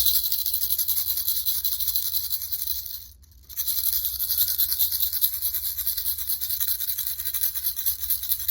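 Buttons rattling inside a closed mystery tube as it is shaken hard, a dense, hissing clatter. It stops for a moment about three seconds in, then starts again and keeps going.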